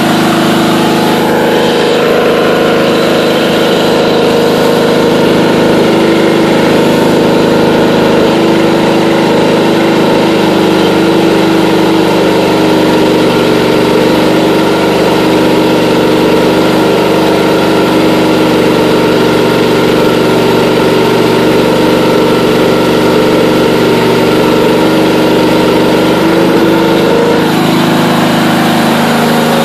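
Allis-Chalmers B-110 garden tractor engine running steadily and loudly while it drives an alternator welder off its front PTO. For a long stretch in the middle its note changes, as the alternator is loaded by stick welding, then settles back near the end.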